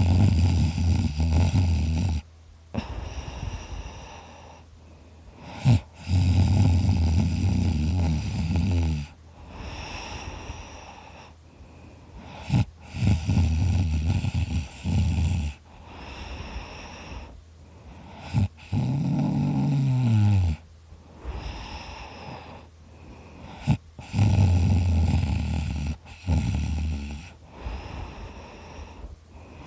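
Loud snoring: about five long, low snores, roughly one every six seconds, with quieter breathing between them. One snore near the middle ends in a falling pitch.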